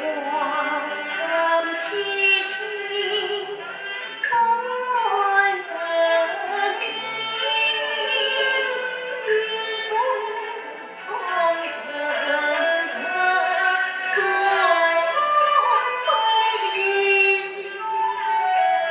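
A female voice singing a slow, gliding melody in Chinese opera style, with instrumental accompaniment.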